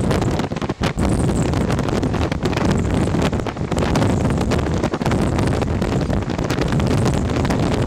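Wind buffeting the microphone at the window of a moving train, over the steady rumble of the train running along the track.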